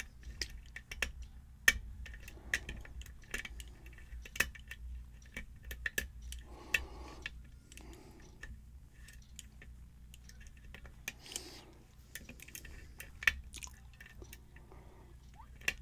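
Lock pick and tension wrench working the pins of a Yale-style pin-tumbler lock: irregular small metallic clicks and ticks, some sharper than others.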